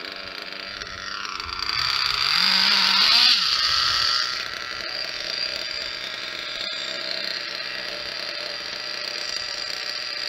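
Kyosho Nitro Mad Crusher's small nitro (glow-fuel) engine running on the bench while its carburetor idle and low-speed needle screws are being tuned. Its revs rise for a couple of seconds, then settle back to a steady idle.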